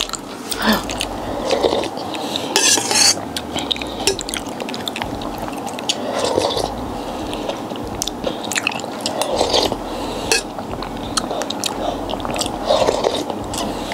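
Close-up eating sounds: chewing and biting food, with scattered light clicks and clinks of dishes and cutlery.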